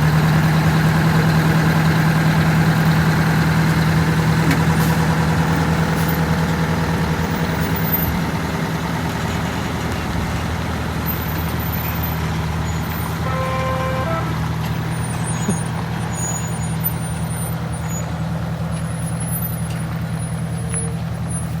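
Detroit Diesel 8V92TA two-stroke turbocharged V8 diesel running steadily at idle in a bus, with a steady low hum that slowly gets a little quieter. A brief pitched tone sounds about 13 seconds in.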